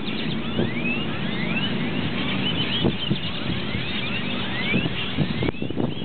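A huge flock of purple martins calling as they gather at their evening roost: many overlapping chirps and short rising calls, over a steady low rumble of traffic.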